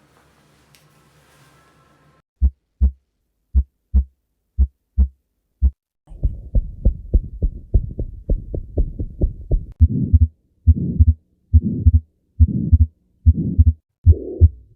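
Recorded heart sounds heard through a stethoscope. After about two seconds of faint hum come clear paired lub-dub beats about once a second; about six seconds in, a fast, closely spaced run of beats over a hiss; from about ten seconds, slower beats each blurred by a rushing murmur, an abnormal heart sound.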